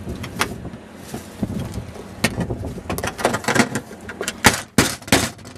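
Claw hammer knocking and prying at a live oyster's shell, trying to crack it open: a string of sharp clicks and knocks, with the three loudest in quick succession near the end.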